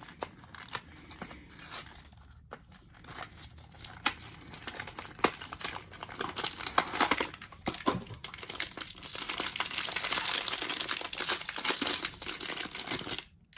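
Blind-box packaging handled and torn open by hand. Scattered clicks and rustles at first, then a dense stretch of crinkling and tearing from about halfway in until just before the end.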